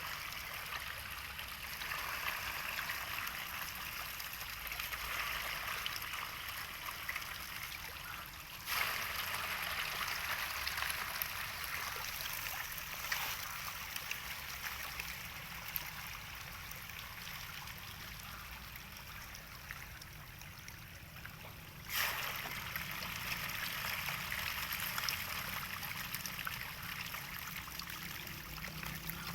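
Steady running, trickling water, with sudden jumps in level about nine and twenty-two seconds in.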